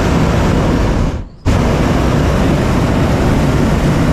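Hot-air balloon's propane burner firing in a loud, steady blast, shutting off briefly a little over a second in and then firing again.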